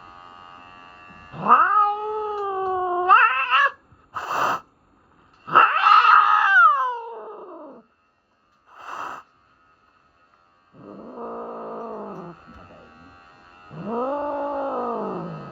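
Norwegian Forest Cat yowling, a series of long drawn-out caterwauls with two short breathy bursts between them: a cat protesting at being handled for a trim.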